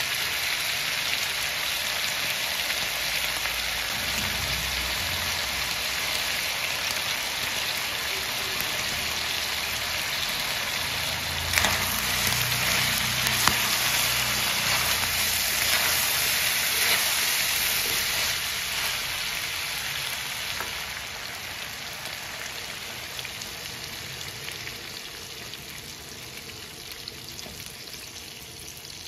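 Pork belly pieces sizzling as they fry in a pan, with a couple of sharp knocks from a spatula stirring them about halfway through. The sizzle fades gradually over the last third.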